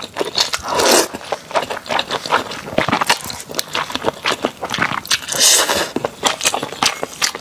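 Noodles slurped and chewed close to the microphone: two long wet slurps, one about a second in and another at around five seconds, among many small mouth clicks and smacks.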